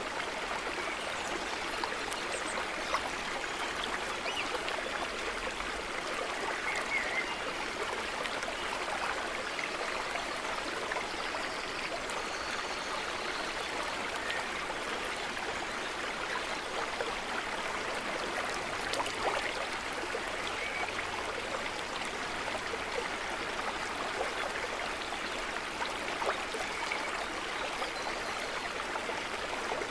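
A small stream running steadily, water trickling and babbling over stones, with a few faint bird chirps now and then.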